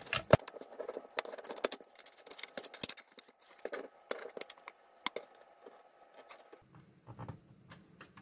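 A small metal pick scraping and clicking against the plastic case and paper sticker on the underside of a cable TV box, in quick irregular ticks and scratches, probing for a screw hidden under the label.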